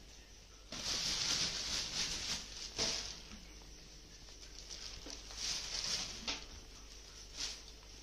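Black plastic bag rustling and crinkling in bursts as handfuls of fresh chillies are dropped into it and it is handled on a metal platform scale, with a short sharp tick about three seconds in.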